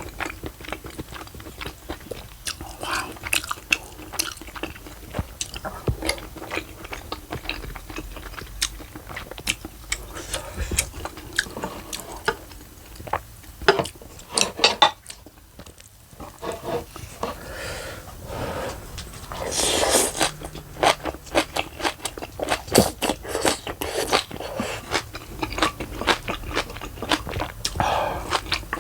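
A person chewing and crunching a mouthful of spicy steamed monkfish and fresh kimchi, with many rapid wet clicks and crunches. There is a short pause about halfway through.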